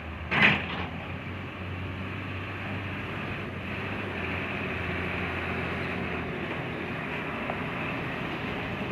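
Heavy construction machine's engine running steadily, with one short, loud, hissing burst about half a second in.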